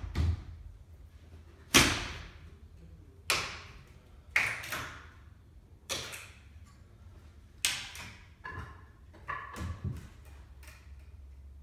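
Wooden banister being knocked apart: about eight sharp knocks a second or two apart as the handrail and balusters are worked loose, each ringing out briefly.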